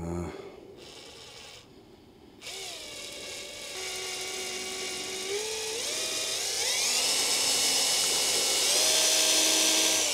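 Electric drill with a 1/16-inch bit boring a small hole, run slowly: the motor starts about two seconds in and its whine rises in pitch in several steps as it speeds up, then begins to wind down at the very end.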